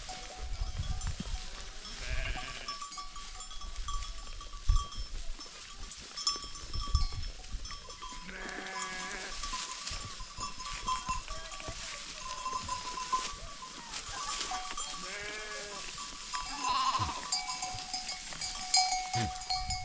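A flock of sheep and goats bleating, several separate calls, with livestock bells ringing in the background. A few short low thumps come through, the loudest about five seconds in.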